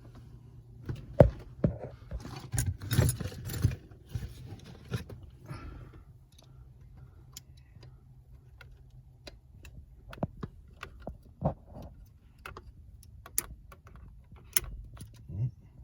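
Hand-work on a car's steering wheel while the airbag module is pried and jiggled loose: scattered sharp plastic and metal clicks and knocks, with a denser jangling rattle about two to six seconds in.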